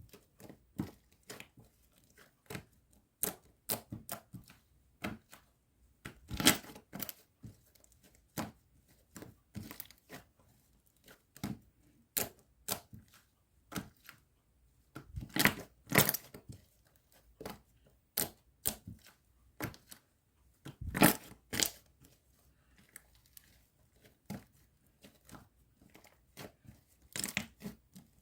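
Slime being squeezed and kneaded by hand, giving irregular sticky pops and clicks as trapped air bursts. There are louder squelching bursts about six, fifteen and twenty-one seconds in.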